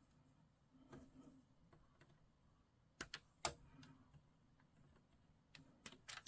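Hobby sprue cutters snipping plastic miniature parts from the sprue: a few soft, sharp clicks in near quiet, the loudest about three and a half seconds in.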